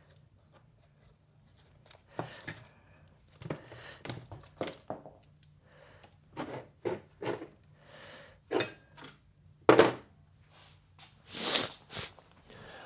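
Tools and parts being handled at the bike, a run of irregular knocks and thunks. About two-thirds of the way in, one piece of metal rings clearly for about half a second, and a sharp knock follows a second later.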